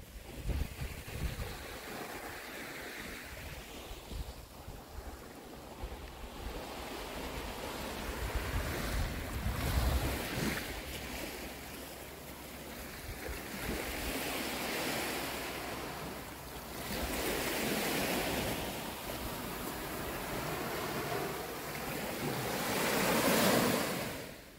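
Sea waves washing onto a beach, the surf swelling and receding every few seconds, loudest near the end, with wind rumbling on the microphone at times.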